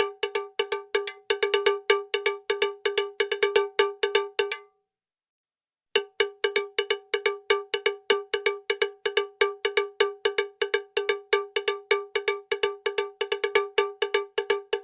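A rapid, uneven run of strikes on a bell-like metal percussion instrument, all at the same pitch, several strikes a second. The strikes break off for about a second of dead silence just before the middle and then resume.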